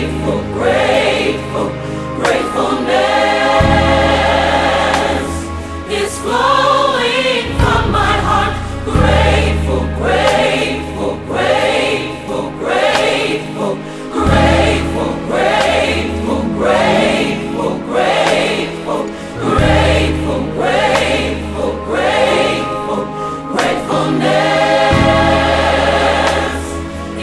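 Gospel choir singing over a backing band with a steady beat and a bass line.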